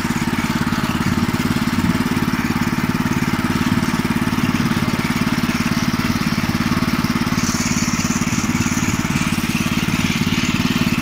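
Veles walk-behind tractor's small air-cooled single-cylinder petrol engine running at a steady speed while the tractor travels along a dirt track pulling its trailer.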